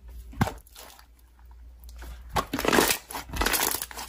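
Hands pressing and squishing blue slime: a single click about half a second in, then a stretch of dense crackling and popping from about two seconds in.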